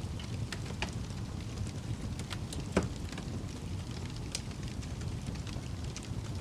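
Wood fire crackling in a fireplace: scattered small pops over the steady low roar of the flames, with one louder pop about three seconds in.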